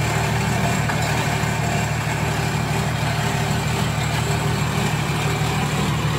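Toyota Land Cruiser hardtop's engine running steadily at low revs.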